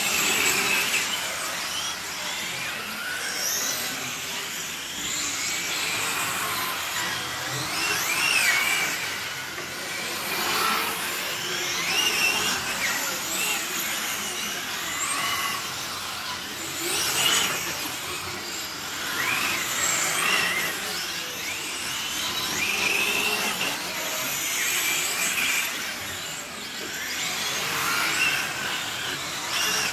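Several electric 1:8-scale GT radio-controlled race cars running together on the track. Their motors whine in pitches that rise and fall as the cars speed up and slow through the corners.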